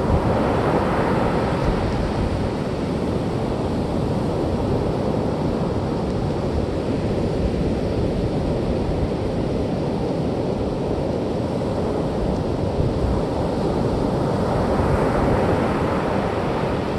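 Ocean surf washing on the beach with wind rumbling on the microphone, a steady noise that swells as waves wash in near the start and again near the end.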